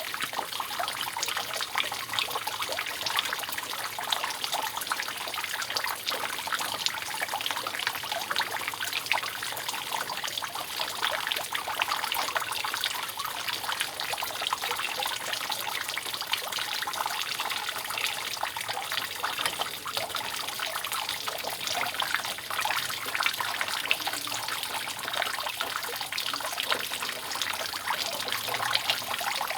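Rainwater dripping and trickling steadily from a roof leak, a dense, even patter of many small drops with no pauses.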